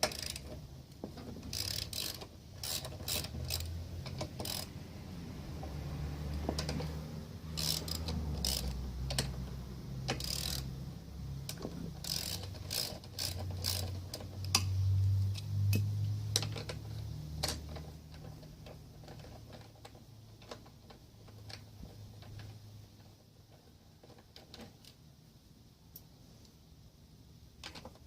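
Ratchet wrench clicking and metal tools knocking as bolts on the mower's front end are worked loose, in irregular runs of sharp clicks. It thins out to faint handling sounds after about eighteen seconds.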